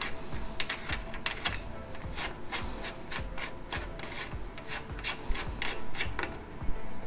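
Knurled steel lockring being unscrewed from the adjustable cup of a bicycle's threaded bottom bracket, the metal threads rasping with a string of short scraping clicks.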